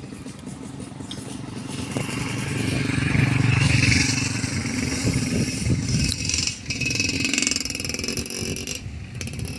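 Motor vehicle engine running, growing louder over the first few seconds and staying loud, with a brief drop about two-thirds of the way through.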